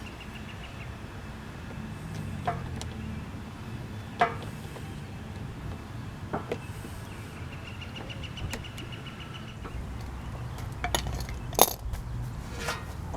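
Hand tools working on a car's radiator fan shroud: a few sharp metallic clinks and knocks, the loudest about four seconds in and near the end, with faint rapid ticking in two short stretches between them.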